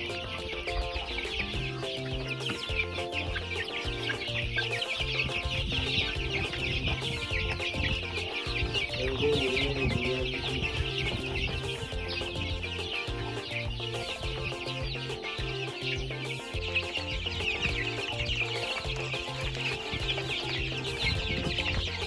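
A large flock of young chicks cheeping, a dense, unbroken chatter of short high peeps, over background music with a steady bass line.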